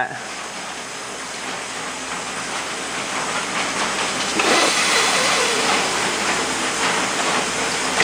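Steady hiss of compressed air driving a homemade smoke tester (a glow plug boiling baby oil) that pushes smoke into the carburetor to find vacuum leaks; the hiss gets louder about halfway through.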